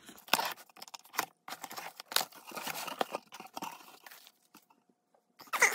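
A cardboard shipping box being opened: a knife slitting the packing tape, then paper and foam packing peanuts rustling and crunching in irregular scratches and clicks, which stop about a second before the end.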